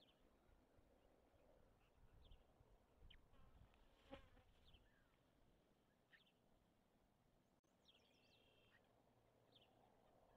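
Near silence on a nest camera: faint scattered short high bird chirps, with a brief insect buzz about four seconds in.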